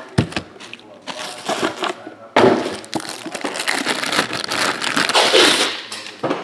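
A cardboard trading-card box being slid out of its sleeve and opened: cardboard rubbing and scraping with crinkling. There are a few sharp clicks at first, then a long dense rustle from about two and a half seconds in.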